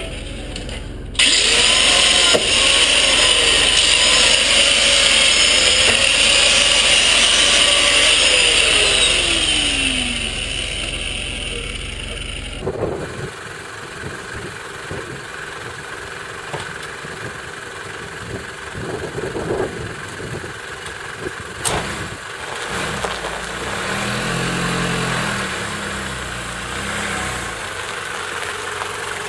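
A vehicle engine running loud with rising and falling pitch, then after an abrupt cut a quieter stretch of engine sound with scattered knocks.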